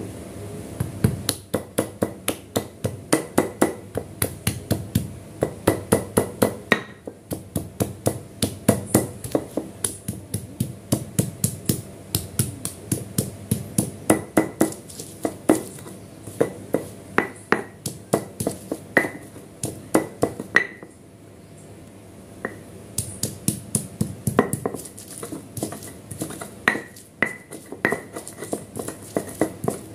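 Garlic cloves being pounded with a stone pestle in a flat stone mortar (Indonesian cobek and ulekan): quick repeated knocks of stone on stone, about two to three a second, some with a short ring. The knocking stops twice for a moment, the longer break a little past the middle.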